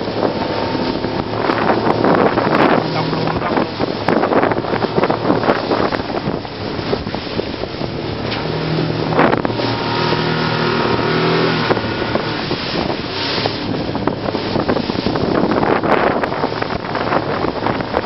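Motorboat running at speed through choppy water: the engine's steady drone under wind buffeting the microphone and the splash and slap of waves and spray against the hull. The engine note stands out more clearly about halfway through.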